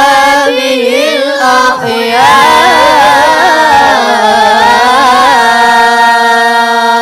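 Boys chanting the closing shalawat of a Qur'an recitation in melismatic tilawah style: an ornamented, winding melodic run on "wa ashabihi", then one long held note about five seconds in.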